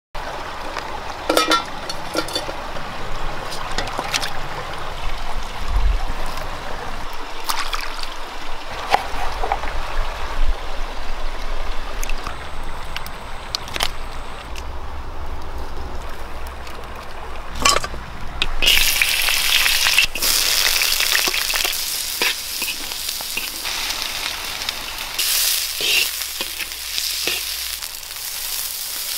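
Meat frying in a wide hot pan with a steady sizzle, loudest from about two-thirds of the way in. Scattered clicks and knocks of handling come before it.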